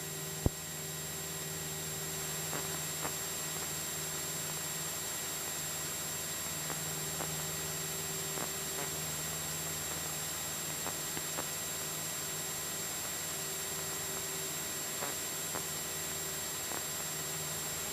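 Steady hiss and hum of the Cessna 172SP's intercom audio during the climb after takeoff, with the engine's drone faint and steady beneath it. A single sharp click about half a second in.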